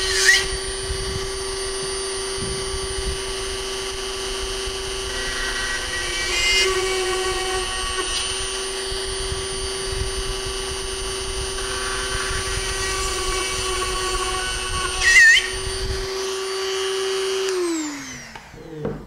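Electric drill running steadily while drilling shear-pin holes through the rocket's body tube into the nose cone shoulder, with a few brief louder squeals as the bit cuts. It winds down near the end, the pitch falling as the motor stops.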